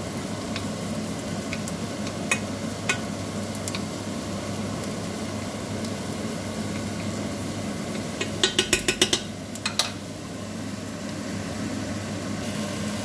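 Grated carrot and chopped onion sizzling in oil in a nonstick frying pan while being stirred with a wooden spatula. A few scattered knocks, then a quick run of sharp knocks a little past the middle.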